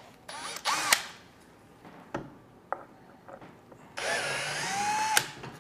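Cordless drill backing screws out of a driftwood mount base: a short run of the motor just after the start, then a longer run of a little over a second from about four seconds in, its whine shifting in pitch, ending in a sharp click.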